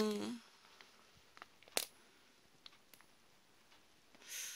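A few faint, short crackles and clicks of a plastic food wrapper being handled, in an otherwise quiet room.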